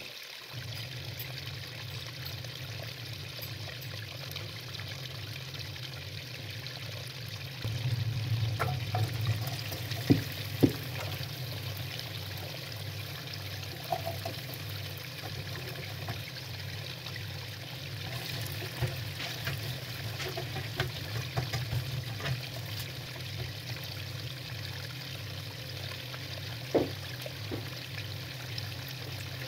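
Diced potatoes frying in oil in a pan, a steady sizzle with a few sharp knocks.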